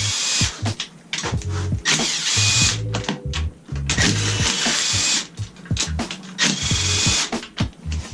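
Power driver spinning out the 12 mm bolts around a manual transmission's case in short bursts, about four over the span, each with a faint whine, with background music playing underneath.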